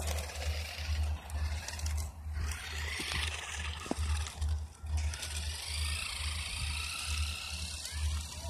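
Small electric motor of a toy radio-controlled monster truck whining faintly as it drives on pavement, rising and falling. Under it runs a steady low thumping about twice a second, the loudest sound.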